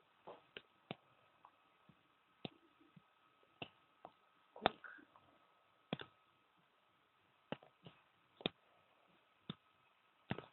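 Faint, irregular clicks and ticks, roughly one or two a second and unevenly spaced, over quiet room hiss and a thin steady tone. The loudest click falls a little before the middle.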